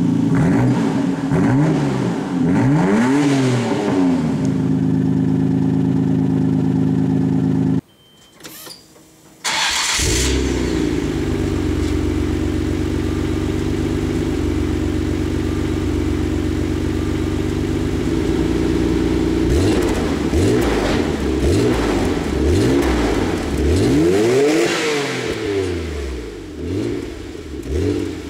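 Nissan R32 Skyline GT-R's RB26DETT twin-turbo straight-six idling through a Kakimoto Full Mega N1 aftermarket exhaust, blipped in a few quick revs that rise and fall. The sound drops away briefly about eight seconds in, then the idle resumes, with a further run of revs in the last third.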